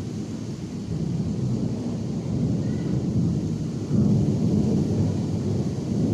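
Rainstorm: rain falling with a deep rumble underneath that swells about four seconds in.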